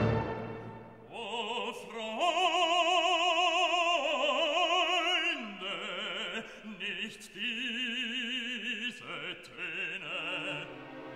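Background music: a solo operatic voice singing long held notes with wide vibrato.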